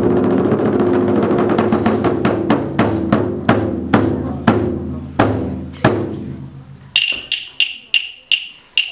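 Chinese drum ensemble: heavy drum strokes over a rumbling roll, the strokes spacing out and fading away. About seven seconds in, a run of sharp, ringing wooden clicks that slow down.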